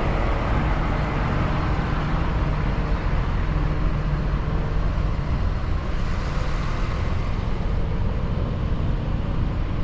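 A heavy vehicle engine running steadily: a low, even drone with a haze of noise over it.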